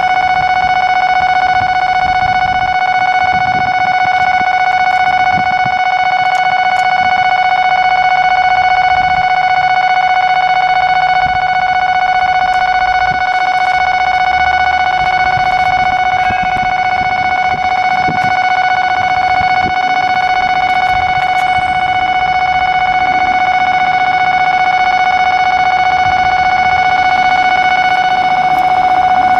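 Loud electronic warning tone with overtones, sounding steadily without a break.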